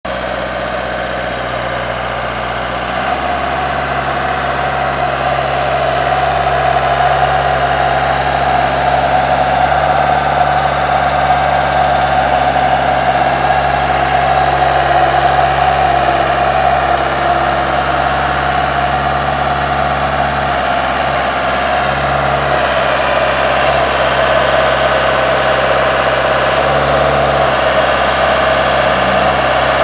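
Vermeer trencher/backhoe engine running steadily at idle. Its low note steps up about three seconds in and wavers briefly a few times later on.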